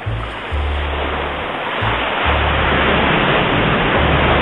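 Steady rush of wind and spray as a small open motorboat runs fast over choppy sea. The camera's microphone picks up a heavy low wind rumble that comes and goes in three long gusts.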